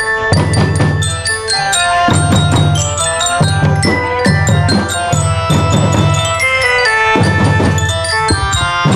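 School drum band playing a tune: a glockenspiel-like bell lyra carries a melody of short ringing notes over a steady beat of marching drums.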